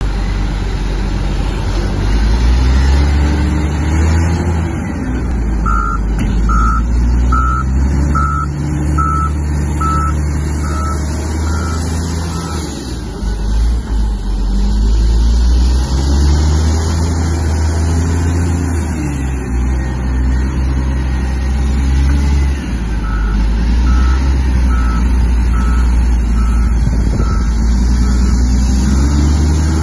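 Komatsu WA500 wheel loader's diesel engine running under load, revving up and down repeatedly as the machine manoeuvres and lifts its bucket. Twice its reverse alarm beeps steadily at a little over one beep a second, first about six seconds in and again in the last third, growing fainter as it goes.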